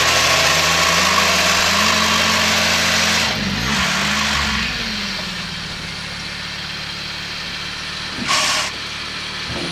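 A utility vehicle's engine running under load while its dump bed tips and a load of aerification cores and sand slides off. There is a loud rush and the engine pitch rises over the first two seconds, then the engine drops back about three and a half seconds in and runs more quietly and steadily. A short burst of noise comes near the end.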